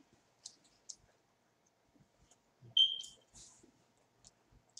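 Quiet eating sounds of barbecue ribs: scattered faint lip smacks and clicks. One short, high beep about three seconds in is the loudest sound.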